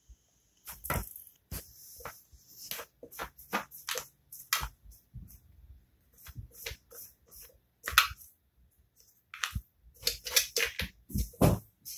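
Cats pawing and nosing at a Petmate Replenish plastic gravity water dispenser: irregular sharp taps and clicks on the plastic, coming thicker and quicker near the end.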